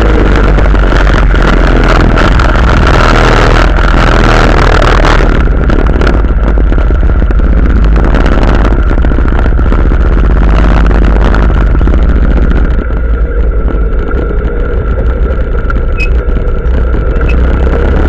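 Quad bike (ATV) engine running under way across sand dunes, loud and close to the camera mounted on the machine, mixed with wind rushing over the microphone. The sound turns duller about five seconds in and eases a little in the last few seconds.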